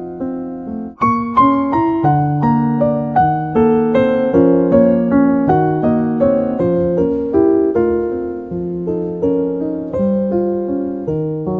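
Calm instrumental music: a piano playing a steady run of single notes and chords, each note ringing and fading, with a brief pause about a second in.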